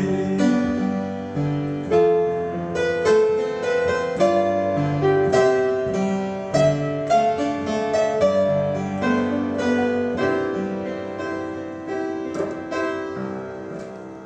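Piano playing the closing bars of a slow ballad, struck chords under a melody line, growing gradually quieter and dying away near the end.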